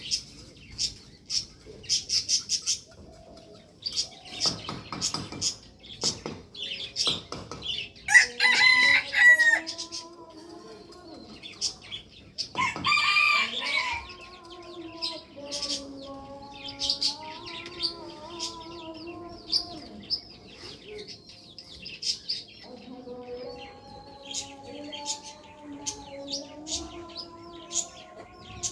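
Roosters crowing, with two loud crows near the start and long drawn-out crows later on, over a steady run of short high chirps and clucking.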